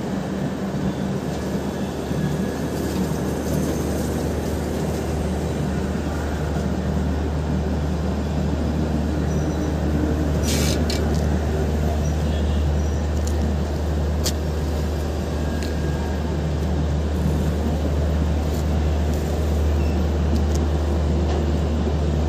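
Shatabdi Express LHB passenger coaches rolling past, a steady low rumble that grows a little louder, with a few sharp clicks about halfway through.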